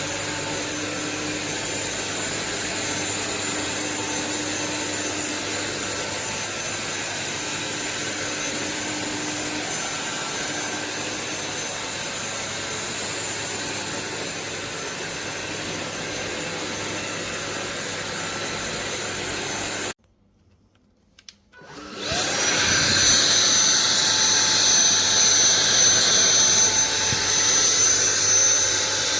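Sulean X8 cordless stick vacuum running steadily with a high motor whine. About two-thirds of the way through it cuts off suddenly, then after a short gap spins back up with a rising whine and runs louder and higher-pitched.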